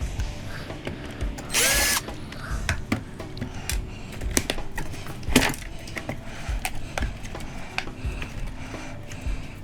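A power drill-driver spins up in a short burst about one and a half seconds in, backing out a screw from a vacuum cleaner's housing, with scattered clicks and knocks of the parts being handled.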